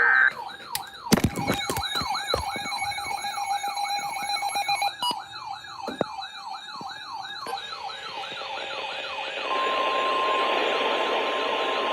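An Emergency Alert System broadcast: a short burst of digital alert data, then a fast, repeating up-and-down electronic siren sweep layered with steady tones, then radio static with a steady weather-radio alert tone near 1 kHz starting about nine and a half seconds in, the attention signal that comes before a warning message.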